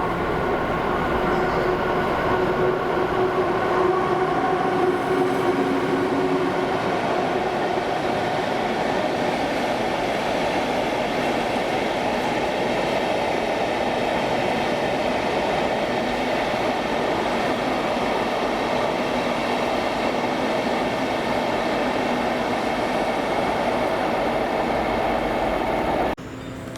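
Train running through the station: a loud, steady rumble of wheels and running gear, with faint steady tones over it for the first several seconds. The sound stops abruptly near the end.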